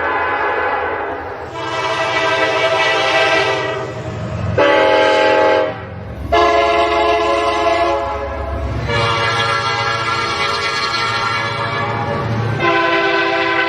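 A run of different Nathan Airchime and Leslie Controls locomotive air horns played one after another, each a sustained multi-note chord, cut abruptly to the next every two to four seconds. There are about six horns in all, one shorter, louder and lower-pitched near the middle, with a low engine rumble under some of them.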